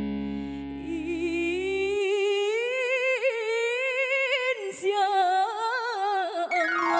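Female vocalist singing a long, ornamented solo line with wavering vibrato. The band's held chord and bass stop about two seconds in, leaving her voice almost unaccompanied.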